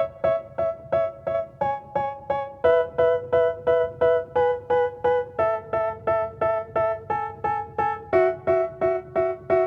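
Background music: a keyboard repeating a short pattern of plucked notes about three times a second, with the chord changing every few seconds.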